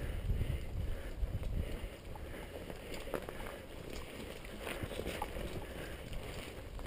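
Wind and movement rumbling on a helmet-mounted camera's microphone while riding a mountain unicycle down a rocky trail, with scattered light clicks and knocks from the ride over the rocks.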